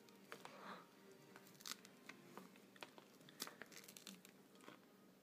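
Faint crackling and tearing of a Monthong durian's spiky husk being pried apart by hand along its seams: a scatter of small cracks and clicks.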